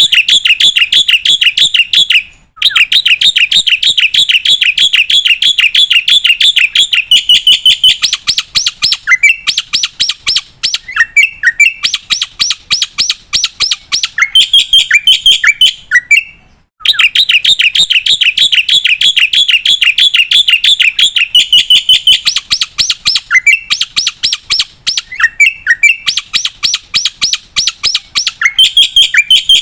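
Black-winged starling (jalak putih) singing loudly: a dense, rapid run of repeated chattering notes. Two brief breaks come about two seconds in and again about halfway through.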